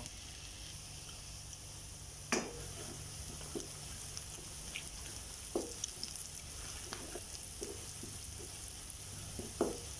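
Chopped onion, ginger, garlic and green chilli sizzling in hot oil in a steel pan. A spatula scrapes and knocks against the pan a few times, most sharply about two and a half seconds in.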